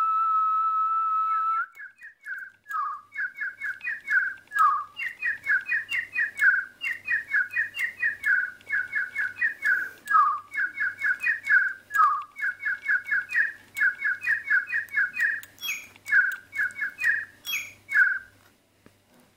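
A single whistled note held steady for about two seconds sets off a DigiBirds electronic toy bird, which then sings a long song of quick, short chirps, each falling in pitch, in phrases with brief gaps. The song stops shortly before the end.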